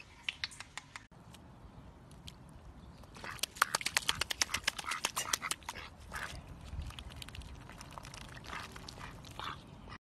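Domestic ducks quacking in quick runs of short calls, busiest from about three to five and a half seconds in, with scattered quacks after.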